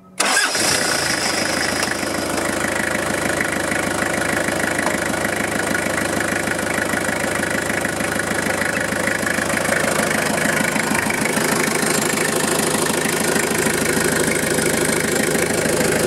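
Toyota Hilux 5L diesel engine, a 3.0-litre four-cylinder, comes in suddenly at the start and then idles steadily with every accessory belt off. Running this way it sounds pretty good, without the light clicking that the owner put down to the alternator's bearings.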